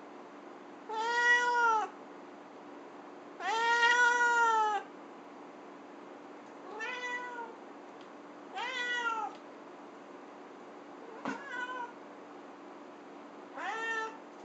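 Russian Blue cat meowing six times, a second or two apart, each meow rising then falling in pitch; the second is the longest and loudest. A short click comes just before the fifth meow.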